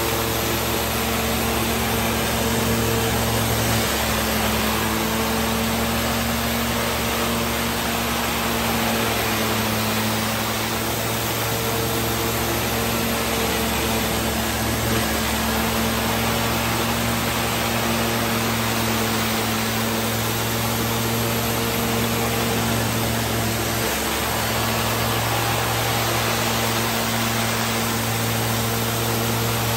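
Tile and grout cleaning machine's rotary spinner tool working across a ceramic tile floor: a steady hiss of spray and vacuum suction over a low, even machine hum.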